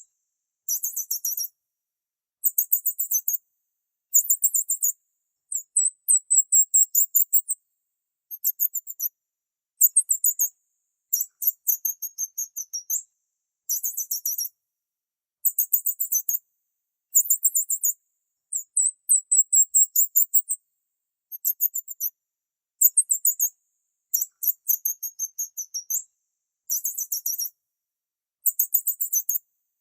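Bird chirping in high-pitched trains of rapid notes, each burst about a second long with short silent gaps between, repeating over and over.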